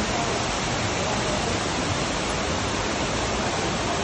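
Steady, unbroken rushing noise, spread evenly from low to high pitches.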